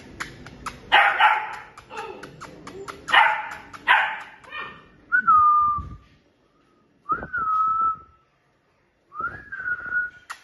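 Beagle puppy whining: three thin, high whines in the second half, the first falling, the second held steady, the third rising then falling. Before them come rapid clicking and rustling with three short, loud, harsh bursts.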